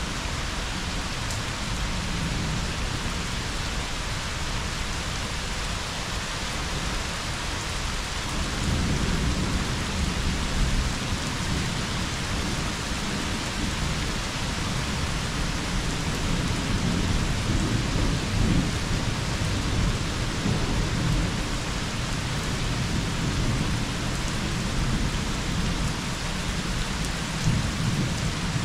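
Rain falling steadily as an even hiss, with thunder rumbling low from about a third of the way in, swelling and easing off several times.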